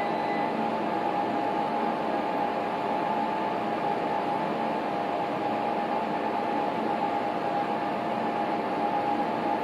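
Steady hiss with a constant mid-pitched hum running through it, unchanging, with no knocks, clanks or other distinct events.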